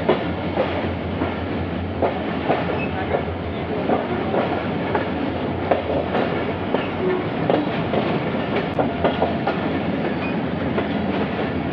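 Moving passenger train, heard while riding in it: steady rumble of the wheels on the track, with frequent irregular clicks as they pass over rail joints.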